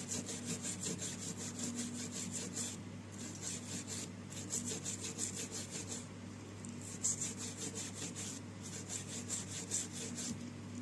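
Rapid back-and-forth scrubbing of a phone's charging flex being cleaned, about six strokes a second, with a few short pauses.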